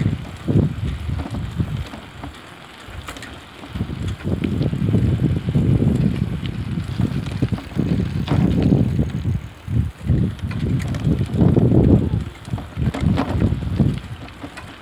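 Wind buffeting the microphone while riding a bicycle along a road, rising and falling in irregular low gusts, with a few faint clicks from the bike.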